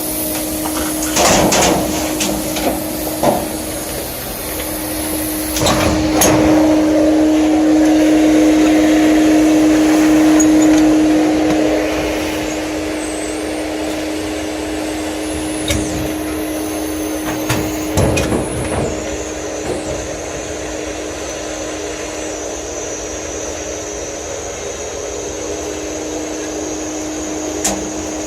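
Duct-cleaning vacuum running with a steady hum, with several sharp knocks and bangs from work in the furnace ductwork. The noise swells to a louder rush of air for several seconds, starting about six seconds in.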